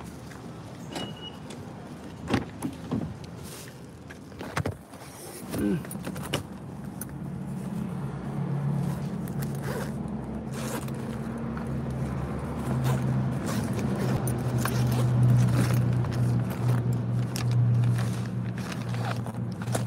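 A car running, heard from inside the cabin: a steady low hum comes in about five or six seconds in and grows louder. Clicks, knocks and rustling of things being handled come before and over it.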